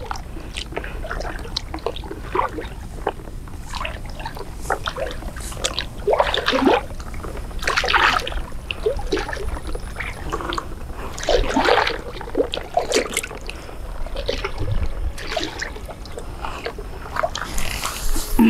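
Water sloshing and splashing around a person's legs as she wades through shallow water, in uneven splashes with a few louder ones around the middle.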